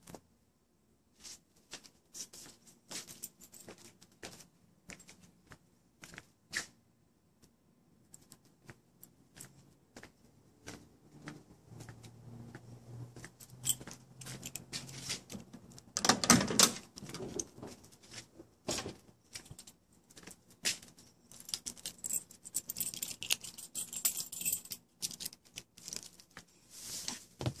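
Keys jangling, with scattered clicks and knocks from handling the car's door and the phone while getting into the car. There is a louder clatter about sixteen seconds in and another run of jingling and clicks later on. No engine is running yet.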